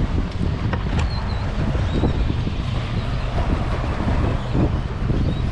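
Steady wind rumbling on the microphone, with choppy river water around a small boat.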